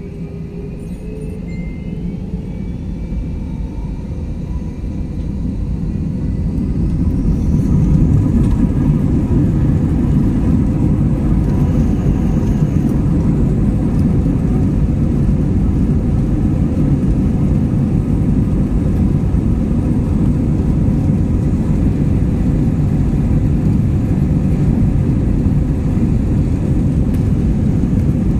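Jet airliner's engines spooling up for the takeoff roll, heard from inside the cabin: a rising whine that grows louder over the first several seconds, then a loud, steady roar and rumble as the plane accelerates down the runway.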